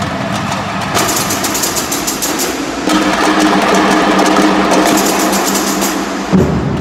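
A student percussion band (bateria) drumming loudly in a dense, driving rhythm, the pattern changing about a second in and again around three seconds, with a heavy low drum hit near the end.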